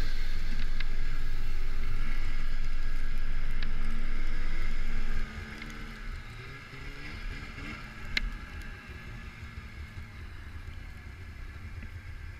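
2021 Arctic Cat Riot X snowmobile's two-stroke engine running as the sled rides through powder, its pitch gliding up and down with the throttle. Loud at first, then it drops off suddenly about five seconds in and carries on much quieter.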